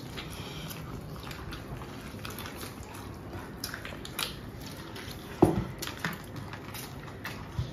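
Quiet eating sounds: chewing and food being handled, with scattered small clicks and smacks and one sharper knock about five and a half seconds in.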